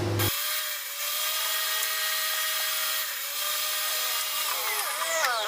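Sliding miter saw running and cutting through wood, a steady motor whine over the hiss of the blade; the motor's pitch dips and wavers near the end.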